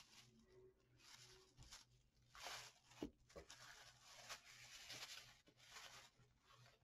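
Faint rustling of a thin plastic bag and a stack of comic books being handled and set down, with a couple of light taps about three seconds in.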